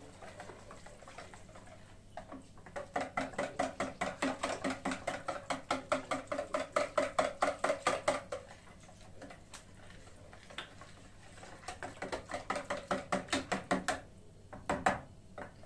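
Wire whisk beating a thin liquid dough mixture in a plastic bowl: rapid, even strokes at about five a second in two runs, the second shorter. A single knock near the end.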